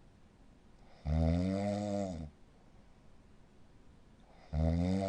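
Snoring sound effect: two drawn-out, pitched snores about three and a half seconds apart, each rising and then falling in pitch, with quiet between.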